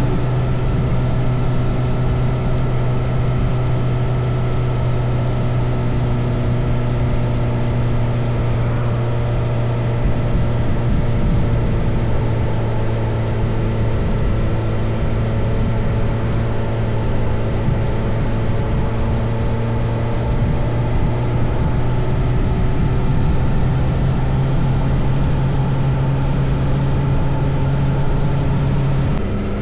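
Motorcycle engine running at a nearly steady speed while riding, its note holding almost constant over a rush of road noise.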